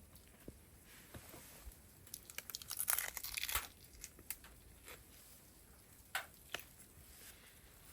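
Close crinkling and crunching handling sounds, densest about three seconds in, with a few sharp clicks afterwards.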